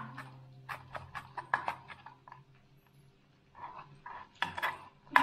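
Chef's knife chopping ginger on a plastic cutting board: irregular sharp knocks of the blade on the board, with a pause of about a second midway.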